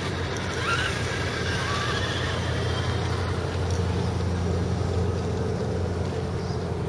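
RC scale crawler trucks' electric motors and gear drives whining as they crawl up a dirt rut, with a short rising whine about a second in, over a steady low hum.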